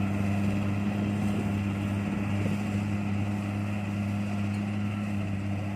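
Kubota DC70 rice combine harvester running steadily, its diesel engine giving a steady low hum.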